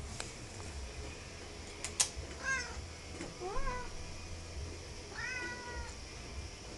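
Domestic cat meowing three times: two short meows, the second rising and then falling in pitch, then a longer, slightly falling meow. A sharp click, the loudest sound, comes just before the first meow.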